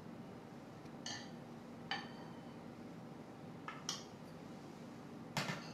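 A metal spoon clinking against a glass mixing bowl four times as batter is scooped and scraped out, each clink ringing briefly. Near the end comes a louder, duller knock of a bowl on the table.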